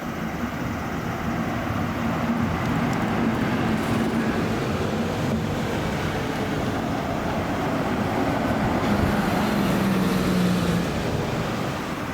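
Buses passing close by: engines running with tyre and traffic noise, the engine hum growing louder toward the end as one bus draws nearest.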